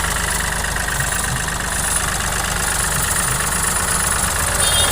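Vehicle engine idling steadily with a regular low beat, running with a noise that the mechanic thinks calls for something to be tightened a little.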